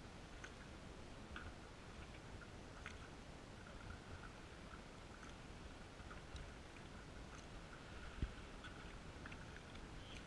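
Faint, muffled paddling on a canoe: small scattered drips and splashes from the paddles, heard through a GoPro's waterproof housing, with a single sharp knock about eight seconds in.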